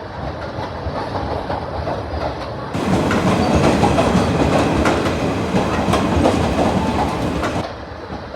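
Passenger train running on the track, its wheels clicking over the rail joints in a steady clickety-clack. It gets louder from about three seconds in and drops back near the end.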